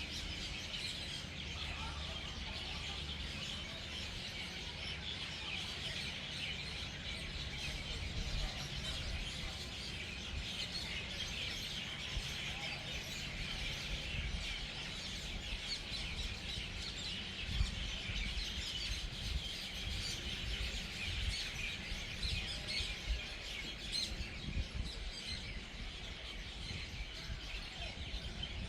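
A large flock of birds chattering and chirping nonstop as they settle in to roost for the night: a dense, unbroken chorus over a low rumble, with a few low thumps in the second half.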